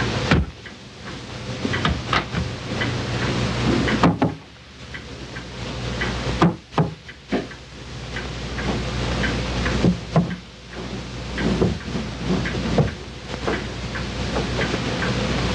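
Steady hiss and low hum from a worn 16mm film soundtrack transferred to VHS, broken by scattered sharp clicks and knocks. The sound drops out briefly several times.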